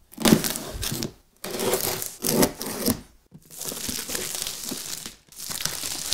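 Clear plastic shrink wrap being torn and pulled off a cardboard laptop box, crinkling and crackling in a run of bursts with short pauses between them.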